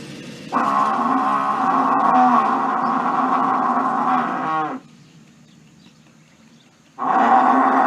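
Buffalo bellowing: a long, deep call of about four seconds that slides down in pitch as it ends. After a short pause, a second bellow begins near the end.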